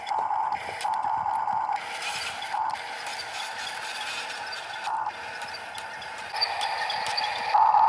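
Hydraulic pump of a 1/4-scale RC excavator whining steadily. The whine swells louder in repeated spells as the controls are worked, with light clicks throughout.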